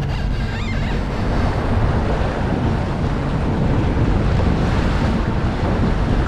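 Wind buffeting the microphone over the steady wash of waves around a boat on rough open sea.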